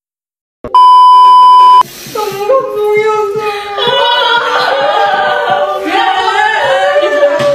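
A loud, steady electronic beep lasting about a second near the start, then young women's voices singing in high, drawn-out notes.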